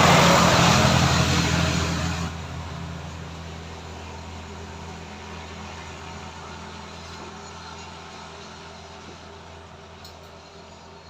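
A motor vehicle going past, loudest at the start and dropping away about two seconds in, leaving a low engine hum that slowly fades.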